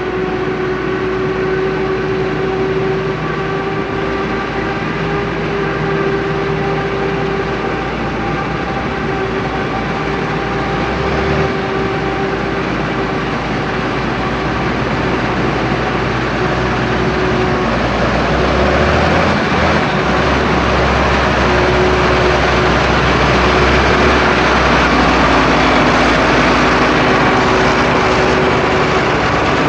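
Heavy harvesting machinery, a Krone Big X 700 forage harvester with tractors alongside, running steadily under load with a high whine over a low engine hum. It grows louder and fuller in the second half as the machines come closer.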